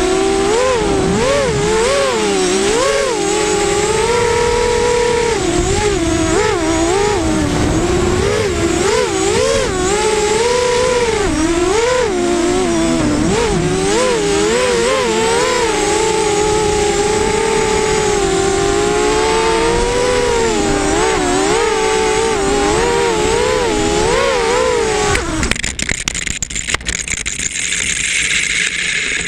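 An FPV racing quadcopter's electric motors whine, their pitch rising and falling quickly as the throttle changes through the flight. About 25 seconds in the whine stops, and rustling noise with scattered clicks takes over.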